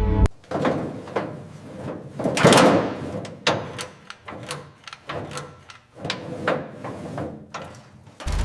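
A string of irregular knocks and clatters, some sharp and some dragging, with a louder rushing scrape about two and a half seconds in.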